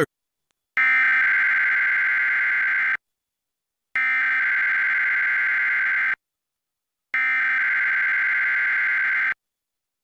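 Emergency Alert System SAME data header: three identical bursts of high data tones, each about two seconds long with about a second of silence between. The burst encodes a Required Weekly Test alert.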